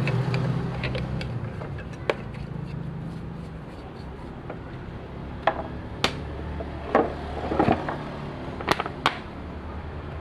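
A steady low engine hum, with about seven sharp knocks or clinks scattered through it, most of them in the second half.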